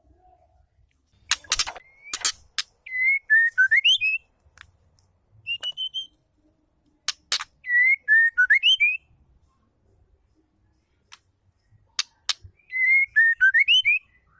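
Female white-rumped shama calling: a few sharp clicks, then a short whistled phrase that dips and then rises, repeated three times with a short single whistle between the first two.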